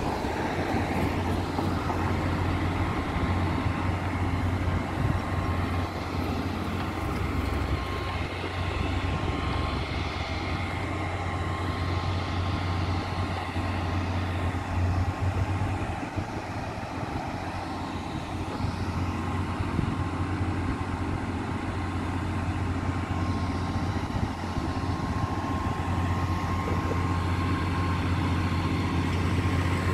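Heavy diesel engine running at a steady idle, a low even drone that does not change.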